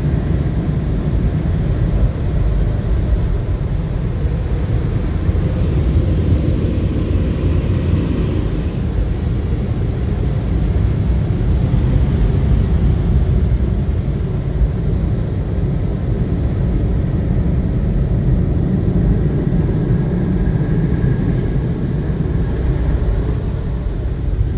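Car wash dryer blowers blasting warm and cold air over the car, a loud steady rush heard from inside the car's cabin.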